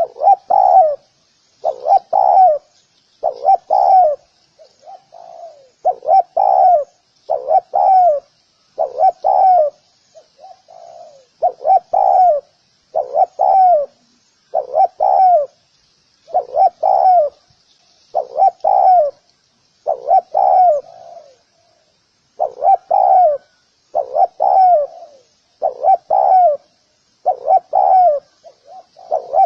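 Spotted dove cooing over and over, its notes coming in quick pairs and triples with a short gap between groups, over a faint, steady high chirring.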